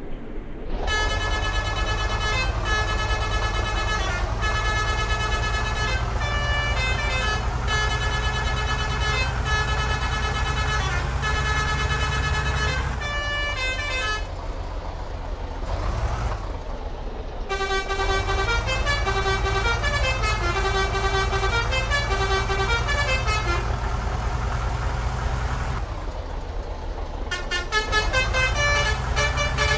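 Telolet multi-tone bus horn playing repeated melodic note sequences in three long passes, with a low rumble under each. The horn breaks off briefly about halfway through, when a short rising-and-falling whoosh is heard.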